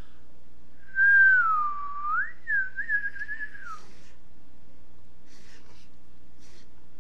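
A person whistling through pursed lips: a single line of pitch that dips and climbs back, then a few quick wavering notes, about three seconds in all, starting about a second in.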